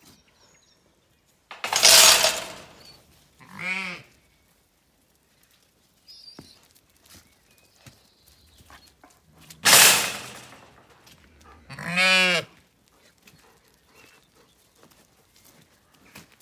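Zwartbles sheep bleating twice, about eight seconds apart. Each time a loud, breathy rasp comes first, and a second or two later a short, wavering bleat follows.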